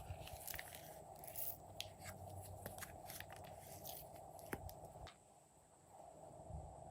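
Glossy slime being squished and pressed by hand, giving faint, irregular sticky clicks and crackles over a steady hiss.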